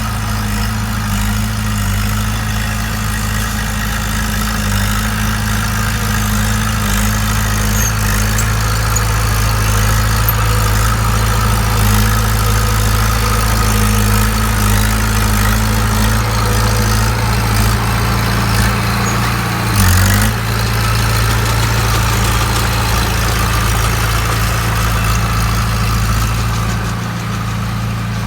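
Bulldozer's diesel engine idling steadily, with one brief louder moment about two-thirds of the way through.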